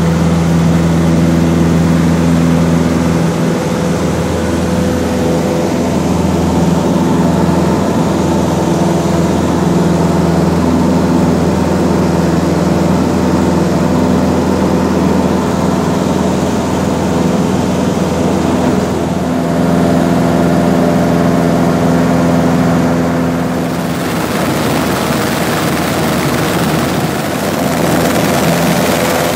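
Cessna's piston engine and propeller running steadily during the takeoff and climb-out, heard from inside the cabin. The engine note shifts slightly about 24 seconds in.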